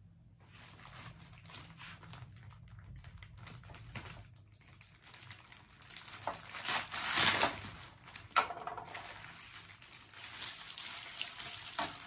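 Clear plastic packaging crinkling and rustling as a coiled vacuum hose is handled inside its bag. It is faint at first and gets louder and busier from about six seconds in.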